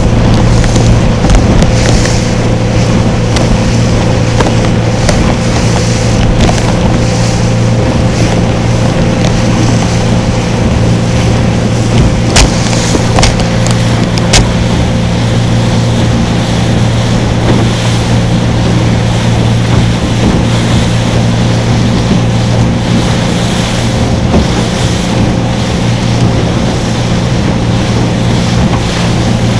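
A small boat's engine running steadily with a low drone, over the hiss of water and wind. A few sharp knocks come about halfway through.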